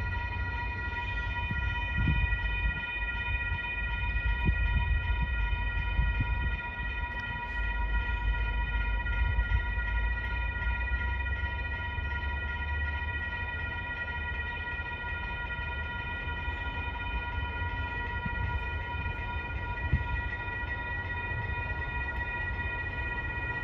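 Grade-crossing warning bell ringing continuously in several steady high tones, over a low rumble from a distant commuter train.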